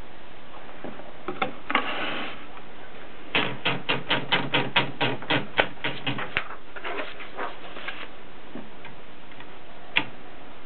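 Mercedes K45 typewriter being typed on: a few clicks, then a quick, even run of about a dozen sharp type-bar strikes, roughly four a second. Softer clicks follow, and one sharp click comes near the end.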